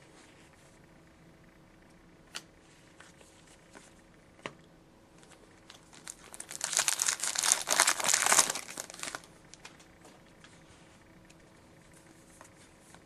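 A foil hockey-card pack wrapper is torn open and crinkled for about three seconds, a little past the middle. Before it come a few light clicks of cards being handled.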